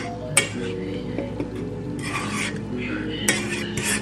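A utensil scraping, stirring and clinking against a pan or dish in irregular strokes, busiest about two seconds in and again near the end.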